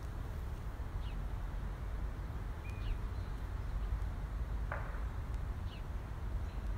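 Outdoor ambience: a steady low rumble with a small bird giving short falling chirps every couple of seconds, and one brief scratchy sound about two-thirds of the way through.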